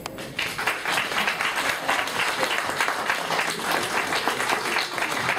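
Audience applauding: a dense patter of many people clapping that starts about half a second in.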